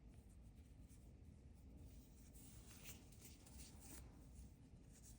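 Near silence with faint, soft rustling of yarn and a crochet hook as stitches are worked.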